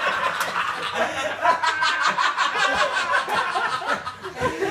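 A small group of people laughing hard together, several voices overlapping in giggles and chuckles.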